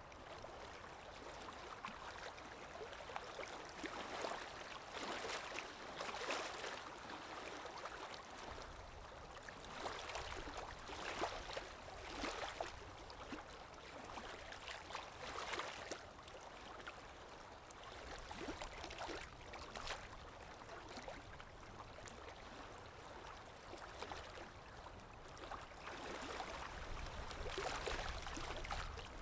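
Gently moving water, with soft sloshes and splashes coming irregularly every second or few over a steady wash.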